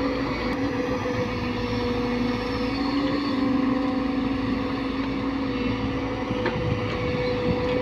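Diesel engine and hydraulics of a JCB crawler excavator running steadily with a droning hum while it swings and dumps a bucket of soil.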